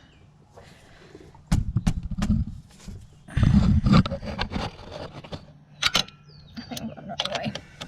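A 10mm socket and ratchet being worked on a thermostat-housing nut on a 4.3 Vortec V6, with two rough bursts of clanking and strain and then a run of sharp clicks near the end. The ratchet was being turned the wrong way, so the nut is not coming loose.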